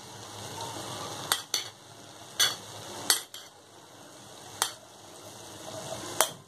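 Spoon clinking and scraping against a stainless-steel bowl and pan as boiled rice is scooped into frying masala, several sharp clinks spread out over a low, steady sizzle.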